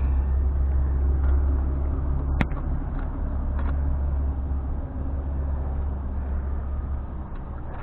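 Low, steady rumble of a motor vehicle engine running, easing off after about five seconds, with one sharp click about two and a half seconds in.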